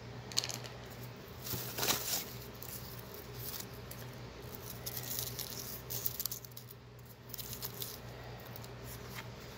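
Crinkle-cut paper shred filler rustling and crackling in a cardboard box as a hand rummages through it, in irregular short bursts.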